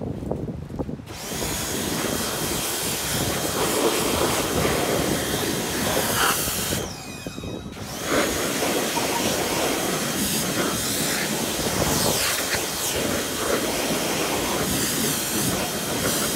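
Pressure washer spraying water onto a motorcycle to wash off surface dirt: a steady rush of spray with a faint high whine. It starts about a second in, breaks off for about a second near the middle, then resumes.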